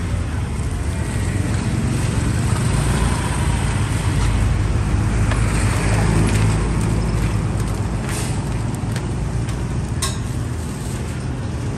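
Steady low rumble of street traffic and outdoor market background noise, with a brief sharp click near the end.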